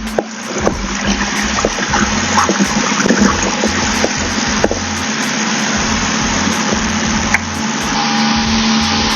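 The four-cylinder engine and propeller of a Cessna 172R running, heard inside the cockpit: a steady drone under a dense rush of noise, with a few short clicks.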